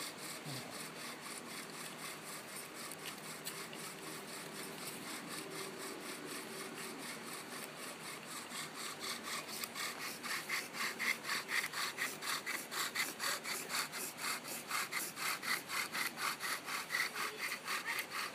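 Wooden bow-drill spindle grinding back and forth in a wooden hearth board, a rhythmic rasping with each stroke of the bow. It gets louder and harsher from about ten seconds in, as the drill hole starts to smoke.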